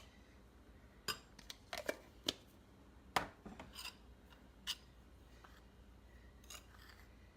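Faint, scattered taps and light scrapes of a measuring spoon against a mixing bowl: about eight short, separate clicks, the sharpest a little after three seconds in.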